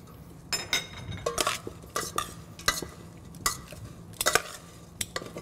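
Metal tongs tossing a salad in a stainless steel mixing bowl, clinking and scraping against the bowl's sides at irregular moments.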